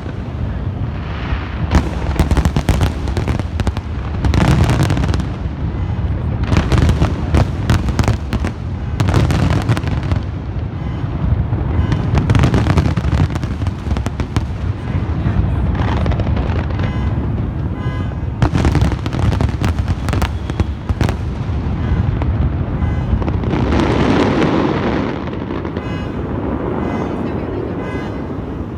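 Fireworks going off in rapid succession: dense crackling and sharp bangs over continuous deep booming, with no pause between bursts. The barrage thins out and gets quieter in the last few seconds.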